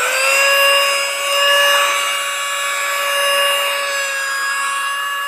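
Small motor of a portable cordless vacuum cleaner running at full speed with a steady high whine.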